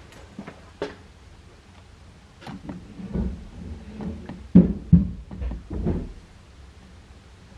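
A string of light clicks and low knocks and thumps, busiest between about 3 and 6 seconds in, with the two loudest thumps about half a second apart.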